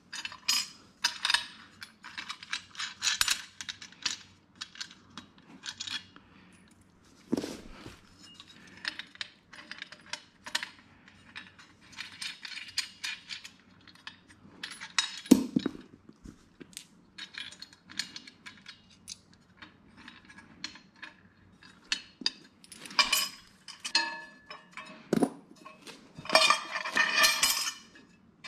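Aluminum wagon parts and steel bolts and nuts clinking and clattering as they are handled and fitted by hand, in short irregular bursts, with three heavier knocks spread through.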